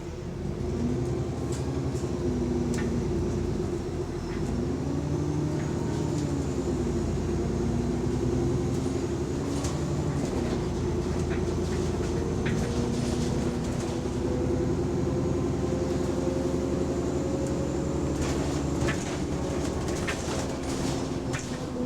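Bus engine running under way, heard from on board, its pitch rising and falling as the bus drives. The bus has a small exhaust leak. Interior rattles and knocks sound throughout, several near the end.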